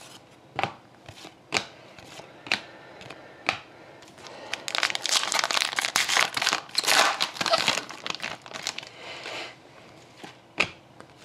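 Trading cards handled with a few sharp snaps about a second apart, then the foil wrapper of a 2012-13 Upper Deck SP Authentic hockey card pack torn open and crinkled for about five seconds, ending with one more card snap.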